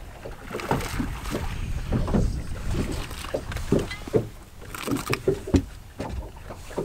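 Irregular knocks and thumps on a bass boat's deck while a hooked bass is fought and landed, over a steady low rumble of wind on the microphone.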